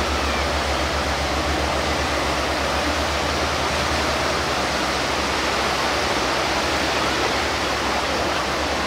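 Surf washing steadily over the beach, with the low steady running of the tracked launch tractor's engine underneath as it tows the inflatable lifeboat on its trolley through the shallows.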